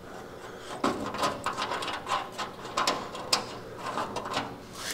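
Irregular light clicks and knocks of hand tools working on the truck's metal fender bolts.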